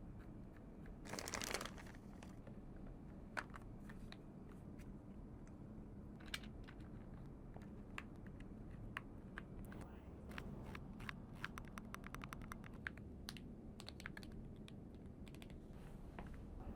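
Keys being typed on an Asus ROG Falcata split keyboard: scattered single key clicks, then a quicker run of keystrokes about ten seconds in. A brief rustle, like packaging being handled, comes about a second in.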